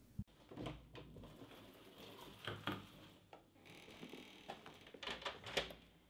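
Small clicks, knocks and rustling as a door's metal lever handle and latch are worked, with the loudest knocks about two and a half seconds in and again near the end.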